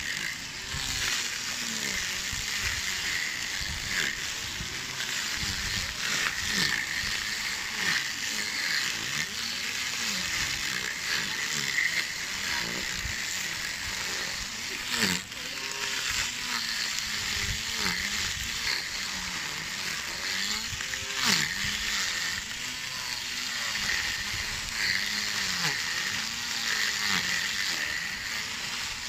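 Small cordless electric string trimmer running, its spinning nylon line whirring as it cuts grass, the motor pitch dipping and rising again and again as the line meets the grass. A couple of sharp clicks partway through.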